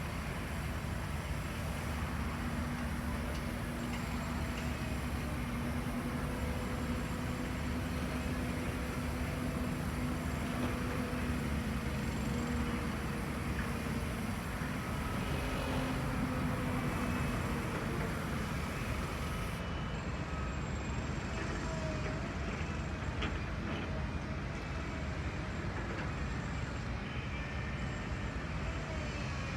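A small electric motor of a radio-controlled model excavator or truck humming steadily, from about two seconds in until it fades out around eighteen seconds, over a steady noisy background.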